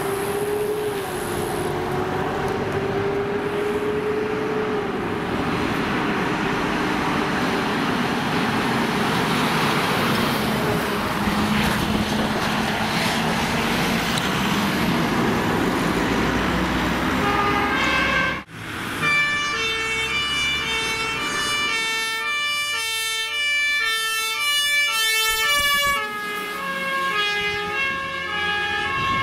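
Fire trucks on an emergency run: a heavy truck's engine and tyre noise passing by, with a tone that slowly falls in pitch. After a cut about 18 seconds in, a two-tone siren alternates steadily between a high and a low note as a fire engine drives by.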